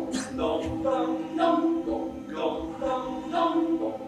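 A small mixed choir of men and women singing a cappella in harmony, in short phrases about a second long over a held lower note.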